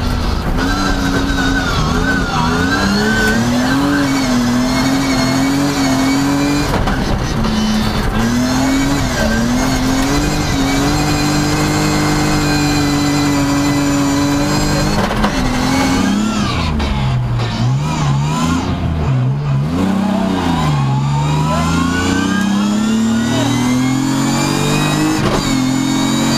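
Rally car engine heard from inside the cabin under hard driving, its pitch climbing under throttle and dropping back at each gear change. After about sixteen seconds it dips lower and climbs more slowly several times, ending in one long climb.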